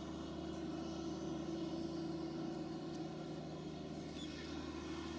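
Farm diesel engines running steadily, a constant low drone with a steady hum, from slurry machinery standing together for a tank-to-tank slurry transfer.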